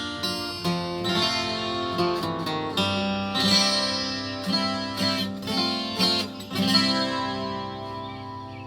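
Yamaha FG820-12 twelve-string acoustic guitar played, a run of chords strummed and picked, the last chord left ringing and dying away near the end.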